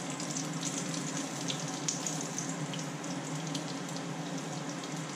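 Breadcrumb-coated whiting goujons shallow-frying in oil in a frying pan: a steady sizzle with scattered small crackles.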